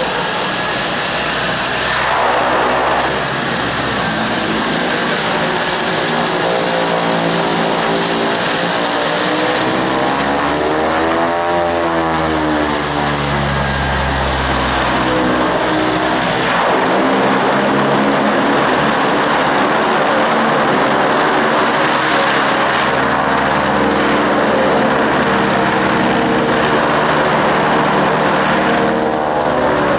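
Turboprop airplane engines running loud and close, with a high turbine whine. The whine rises and then falls around the middle, with a sweeping, phasing sound as the aircraft moves past.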